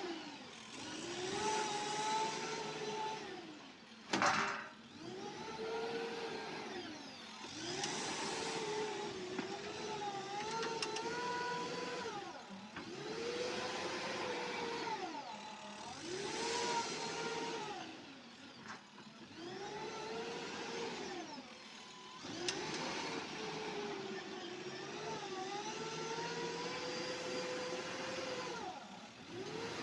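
Diesel engine of heavy machinery rising and falling in speed over and over, each swell lasting a few seconds, as in repeated working cycles under load. A sharp knock sounds about four seconds in.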